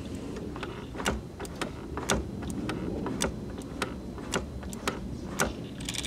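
Irregular light mechanical clicks from the throttle body of a Rover T16 turbo engine, with the ignition on and the engine stopped, during a throttle and idle stepper motor reset.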